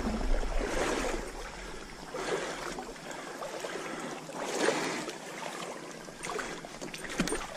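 Stream water trickling and sloshing at the bank, swelling softly a few times, with a few faint clicks.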